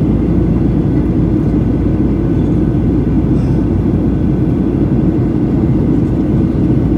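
Steady cabin noise of a Boeing 737-800 in flight, heard from a seat over the wing: a low, even rumble of the CFM56-7B engines and rushing air.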